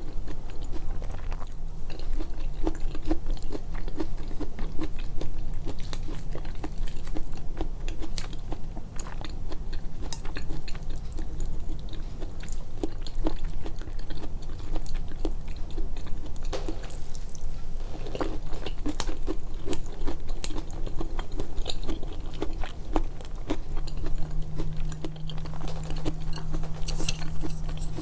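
Close-miked, amplified eating sounds: a person chewing and biting food with wet mouth clicks and smacks in an irregular stream. A steady low hum lies underneath.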